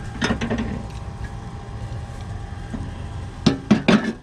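Metal parts and tools clinking and knocking as mower spindle hardware is handled: a short clatter about a quarter second in, then a quick run of about four sharp knocks near the end.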